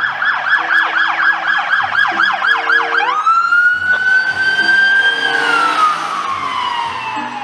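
Police car siren on a fast yelp, about five quick up-and-down sweeps a second. About three seconds in it switches to a wail that rises, holds, and then slowly falls.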